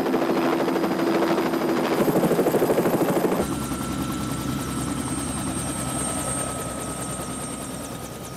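Helicopter running, with a fast pulsing rotor chop for the first three and a half seconds. Then it changes suddenly to a steadier, quieter drone with a thin high whine that slowly fades.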